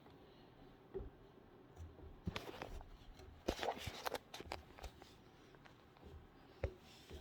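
Faint handling noises: rustling with scattered light taps and knocks, busiest from about two to four and a half seconds in, over quiet room tone.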